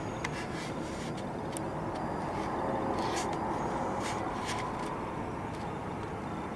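Steady hum of distant city traffic, with scattered faint clicks over it.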